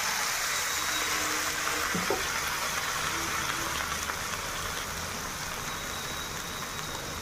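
Shredded vegetables and freshly poured soy sauce sizzling in a hot iron kadai: a steady hiss that fades slightly toward the end.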